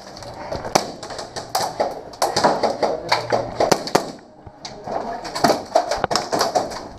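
Airsoft guns firing in rapid, irregular sharp snaps, densest about two to four seconds in, with a short lull just after.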